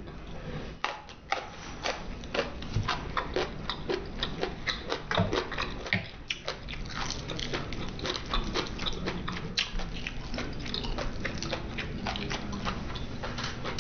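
Close-miked chewing and biting of Chinese takeout chicken: a rapid, uneven string of short mouth clicks and smacks, several a second.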